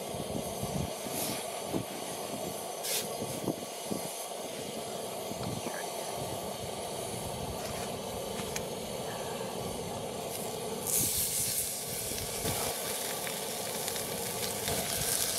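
Fish fillet sizzling in hot oil in a cast-iron skillet: a bright frying hiss starts suddenly about eleven seconds in and keeps going, over a steady low rush in the first part.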